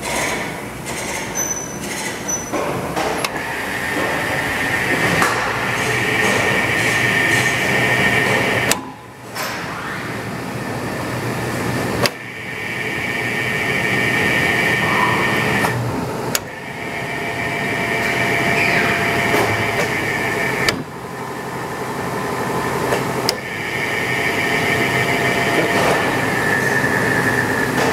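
Hardinge DSM-59 lathe running, its spindle and drive giving a steady mechanical whine. The sound cuts out briefly about five times and builds back up after each break.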